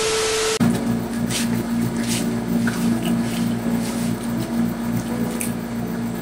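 A burst of TV-static hiss with a steady beep tone, cutting off about half a second in. After it comes a steady low hum with a few faint clicks and rustles.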